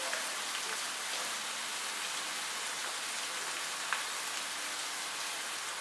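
Diced chicken and sliced mushrooms sizzling in olive oil in a pot with cream just poured over them: a steady hiss, with one light tick about four seconds in.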